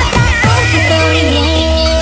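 Pitched-up, sped-up "chipmunk version" of an electronic pop song: a deep sustained bass comes in about half a second in under a long held high note.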